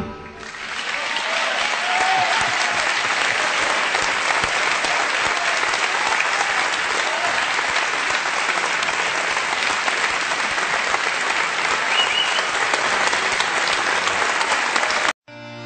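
Concert audience applauding steadily as a tango piece ends. The applause cuts off abruptly near the end, just before bandoneon music starts.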